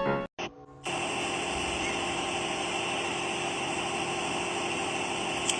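A small motor running steadily with an even whir and constant hum tones, starting about a second in, after a brief scrap of music ends.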